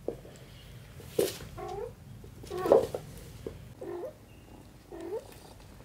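A cat meowing in short calls, about five of them, the loudest near the middle.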